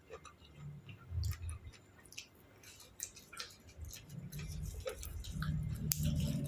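A person chewing food close to the microphone: scattered wet mouth clicks and soft crunches, with a low hum building over the last couple of seconds.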